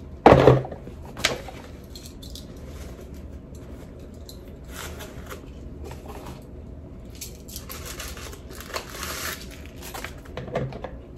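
Fabric dust bag rustling as a white leather sandal is pulled out of it and handled, with soft crinkling patches in the middle and later on. A brief loud sound comes about a third of a second in, and a sharp click shortly after.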